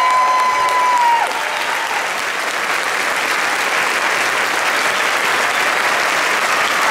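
Audience applauding steadily after a stage musical. For about the first second a high held tone rides over the clapping, then drops away.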